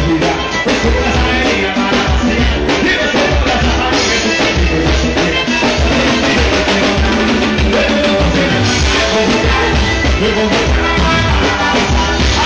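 Live band music played on stage, a drum kit keeping a steady beat under electric guitar and other instruments.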